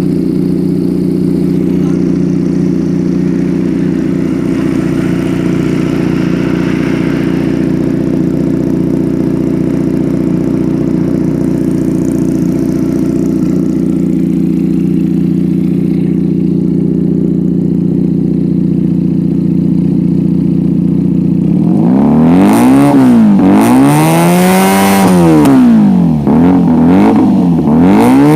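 Benelli TNT 250 motorcycle engine with its stock exhaust idling steadily, then, about three quarters of the way in, revved in a series of quick throttle blips that rise and fall in pitch.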